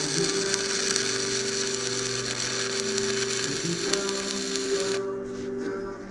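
Steady crackling hiss of an electric welding arc that cuts off suddenly about five seconds in, heard over guitar music.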